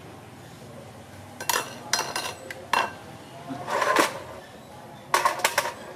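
Spatula clinking against a frying pan and a ceramic bowl: a few sharp clinks, a longer clatter about four seconds in, and a quick run of clinks near the end.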